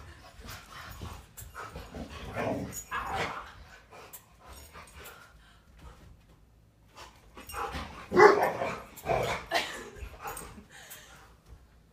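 A dog barking in short bursts, in two spells, the louder one about two-thirds of the way through.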